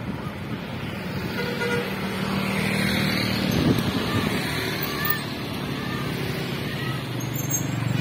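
Tour bus's diesel engine running as it approaches and pulls up, growing louder toward the end, with a few short horn toots.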